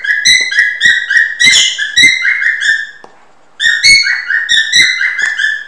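A stylus squeaking across a tablet screen as words are handwritten: a quick run of short, high squeaks, each beginning with a light tap, with a brief pause about three seconds in.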